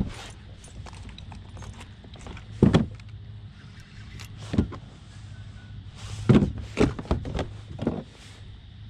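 Handling noise in a plastic sit-on kayak: scattered sharp knocks and clatters as a fishing rod and gear are moved about, a few spread out and then a quick run of them near the end, over a low steady hum.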